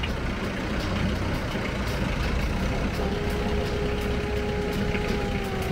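Boat engine running steadily with a low rumble; a steady higher tone joins about halfway through.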